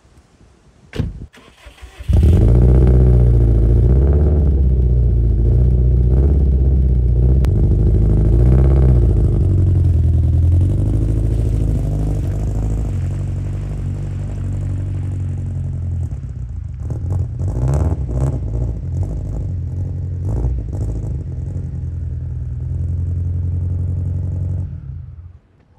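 Heavily modified Subaru WRX STI's turbocharged flat-four engine, which has a blown head gasket. A click comes about a second in, then the engine starts. It runs with an unsteady idle that settles a little lower after about ten seconds, and shuts off near the end.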